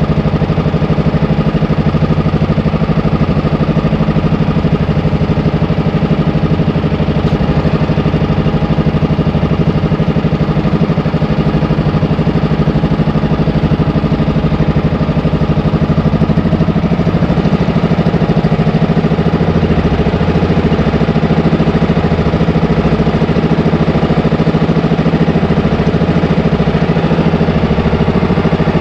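Engine of a small outrigger fishing boat running steadily under way, a constant loud drone.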